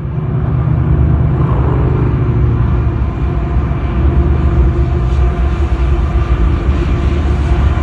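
Several BNSF diesel-electric freight locomotives passing close by, their engines making a steady, loud low rumble with a steady hum over it.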